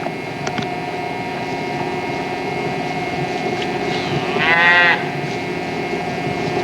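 A single short animal call about four seconds in, its pitch rising then falling, over a steady hum.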